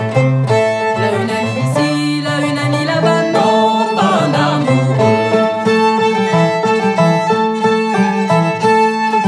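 Traditional Louisiana French string band playing, fiddle leading over banjo and resonator guitar, with several voices singing together about four seconds in.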